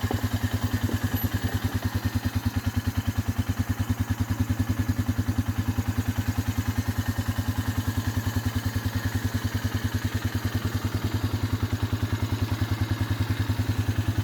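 A small engine idling steadily, a low, even, rapid throb.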